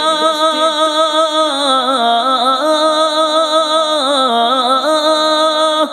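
Background music: a solo voice singing an Urdu naat (devotional song), holding one long note that is steady at first and then ornamented with turns in pitch.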